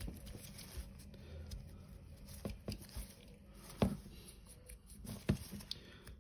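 Quiet handling noise at a hobby workbench: gloved hands and a paintbrush moving about, with a few short soft knocks.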